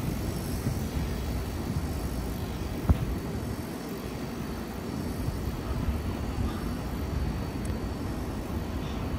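R188 subway train standing in the station with its doors open, a steady low rumble of its running equipment. A single sharp knock comes about three seconds in.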